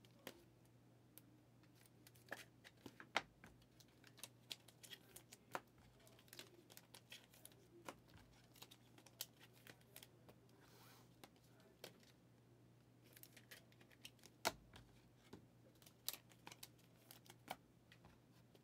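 Faint handling of Panini Mosaic football trading cards: irregular light clicks and rustles as cards are flipped through one by one and laid on stacks, two clicks louder than the rest, over a faint steady low hum.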